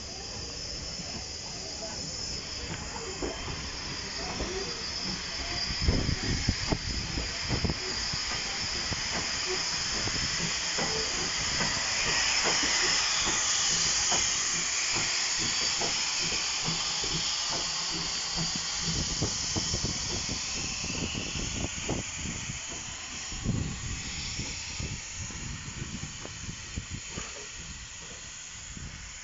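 Steam hissing from a Hudswell Clarke 0-6-0 saddle tank steam locomotive, swelling to its loudest about halfway through. About six seconds in there is a spell of knocks and clatter.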